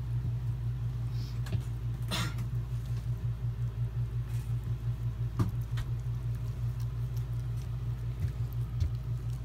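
Soft rustling and small wet clicks of a newborn puppy being handled and freed from its birth sac, over a steady low hum that pulses rapidly. A brief louder rustle comes about two seconds in.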